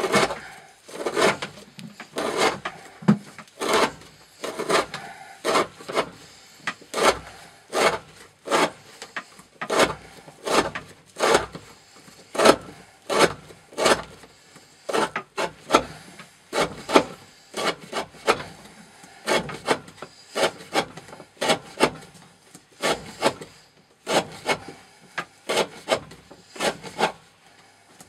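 An N690 steel knife blade slicing through rope again and again, a short rasping cut about one and a half times a second, in a wear-resistance test that steadily dulls the edge.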